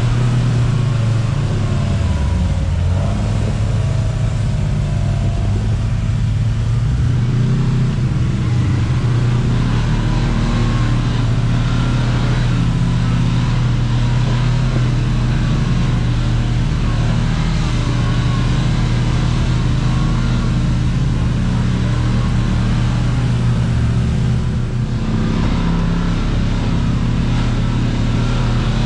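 Kawasaki Teryx KRX 1000 side-by-side's parallel-twin engine running at a steady, moderate pace along the trail, its pitch wavering only slightly, with a rough rattle and road-noise haze over it.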